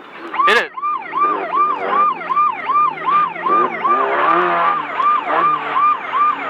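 Rapid electronic siren-like alarm yelping about three times a second, each yelp a quick rise and fall in pitch, over the race car's engine revving and rising and falling. A sharp thud comes about half a second in, just before the alarm starts.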